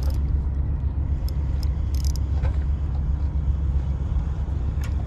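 A spinning fishing reel being cranked, with a few faint light clicks, over a steady low rumble.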